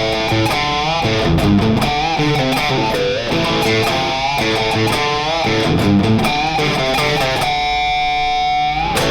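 Electric guitar played through a Friedman BE-Mini solid-state amp on its crunch tone with no pedals, gain at about 10 o'clock: a hard-rock riff with string bends, ending on one held, wavering note near the end.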